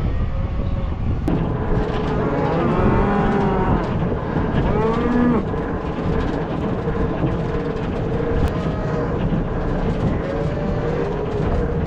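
Cows and calves mooing, several overlapping calls, loudest and busiest from about two seconds in, over the steady running of a tractor engine.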